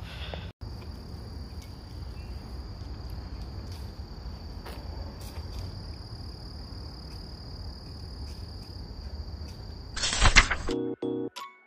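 Open-field ambience: a low, steady rumble of wind on the microphone under a thin, steady, high-pitched insect trill. About ten seconds in comes a short, loud whoosh, the loudest sound here, and music with pitched notes begins right after it.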